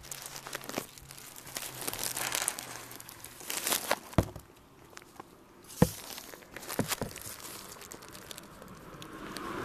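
Rustling and crinkling handling noise from the recording phone being moved about, with a few sharp knocks, the loudest near the middle.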